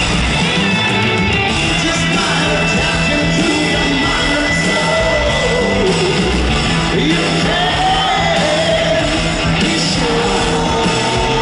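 A rock band playing loud live, with electric guitars, bass, drums and a male lead singer, echoing in a large arena hall as heard from the crowd. The singing comes in about four to five seconds in.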